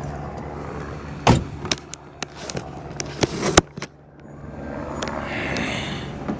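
Audi A3 1.8 FSI engine idling with a misfire, under a series of sharp knocks and clatters, the loudest about three and a half seconds in. After that comes a soft hissing rustle.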